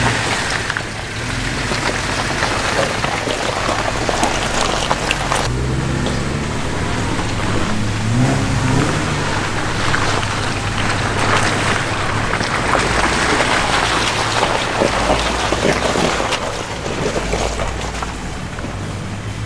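Off-road vehicle engine running at low speed, revving up a couple of times about halfway through. Tyres splash and crackle through wet mud and puddles.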